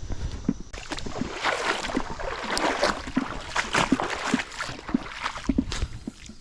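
Shallow creek water sloshing and splashing unevenly, as of someone wading through it, starting about a second in and fading near the end.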